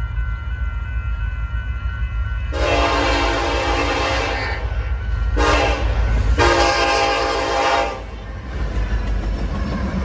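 Union Pacific 8997's multi-note air horn sounding the grade-crossing signal as the freight approaches. A faint long blast ends about a second and a half in, then comes a loud long blast, a short one and a final long one. A steady low rumble from the diesel locomotives runs underneath, and the locomotives are passing close near the end.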